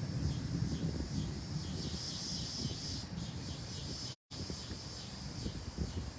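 Gusty thunderstorm wind buffeting the microphone with a low rumble, over a steady high chirping of insects such as crickets. The audio drops out completely for a moment about four seconds in.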